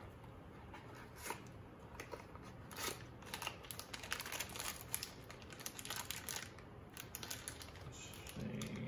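Small clear plastic parts bag crinkling and rustling as it is handled and opened, with irregular light clicks of the small parts inside, busiest in the middle few seconds.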